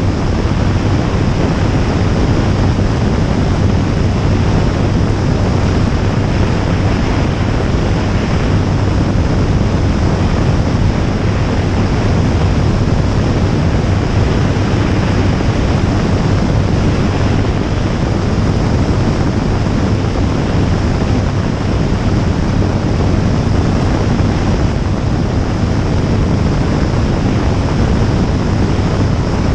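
Jabiru J160 light aircraft in level flight: the steady drone of its four-cylinder engine and propeller, with a constant low hum, buried in loud wind rushing over the microphone.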